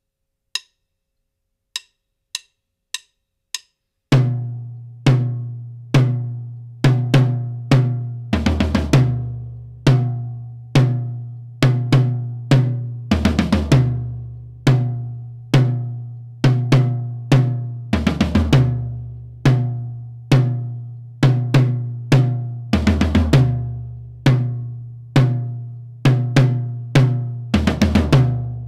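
Drum kit playing a dotted-eighth tom groove, the floor tom ringing low on each stroke, with a louder cymbal-and-bass-drum accent about every five seconds. A few sharp clicks count it in during the first four seconds.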